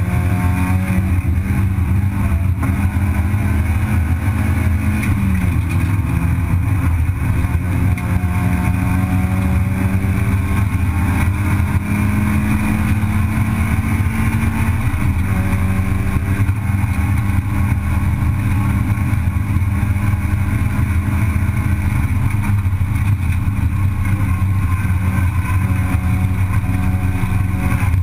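Racing saloon car's engine heard from inside the cabin under hard acceleration, its pitch climbing slowly and dropping about five seconds in and again about fifteen seconds in, over a steady roar of road and wind noise.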